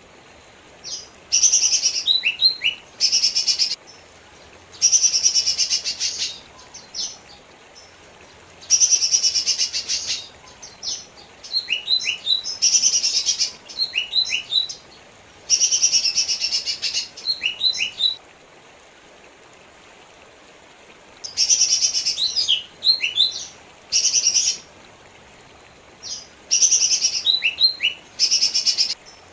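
Cucak ijo mini (a small leafbird) singing. It gives bouts of fast, dense chattering song broken by quick falling whistled notes, with short pauses between phrases and a longer silence about two-thirds of the way through.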